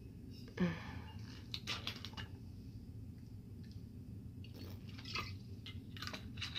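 Someone swigging straight from a bottle: quiet swallowing and mouth noises with small clicks and rustles of the bottle, and a brief louder sound about half a second in.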